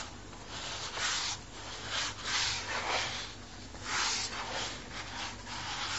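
A hand rubbing butter into icing sugar in a bowl, making soft rhythmic swishing strokes about once a second as the sugar and butter are worked together.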